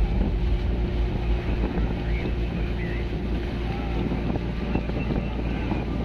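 Boat engine running steadily, a low hum with wind buffeting the microphone.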